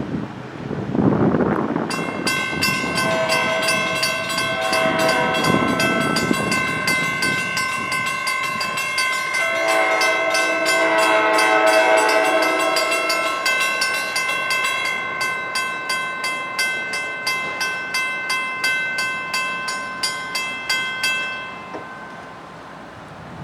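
A New Jersey Transit push-pull commuter train passes, its wheels clicking over rail joints in a steady rhythm of about three a second, with a steady high ringing tone over it. A train horn sounds for about four seconds midway.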